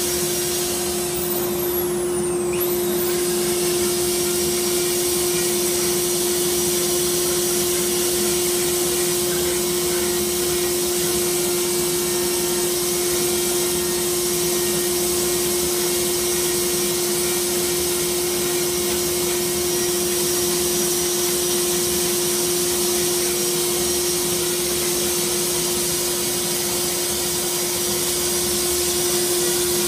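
Dust-collection vacuum running steadily at the end of its hose, with a rotary carving tool grinding into wood and a steady whine under the rush of air.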